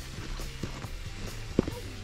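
Background music, with one sharp knock about one and a half seconds in.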